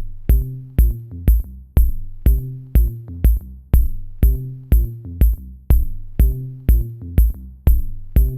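Electronic background music with a steady drum-machine beat, about two beats a second, over held low bass notes.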